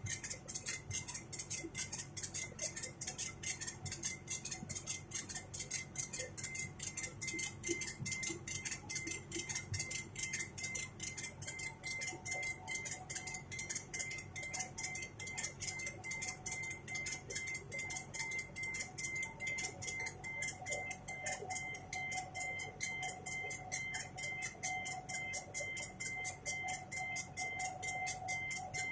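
CNC milling machine cutting metal: a steady high whine with rapid, even ticking, and a second, lower tone joining about halfway through.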